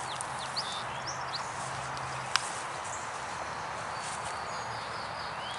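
Steady outdoor hiss over a bed of campfire coals, with one light click about two seconds in as a jalapeño is set down on the wire grill rack, and a few faint high bird chirps in the first second.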